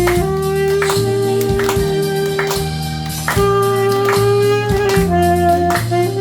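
Saxophone playing a slow melody in long held notes over an accompaniment of bass and a steady drum beat.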